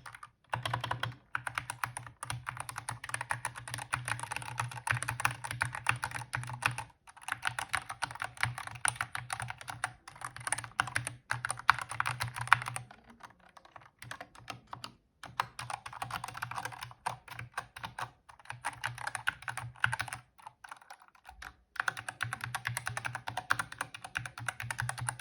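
Fast typing on a mechanical keyboard with its stock switches: runs of rapid key clacks broken by short pauses. The typist reckons the keys need lubing.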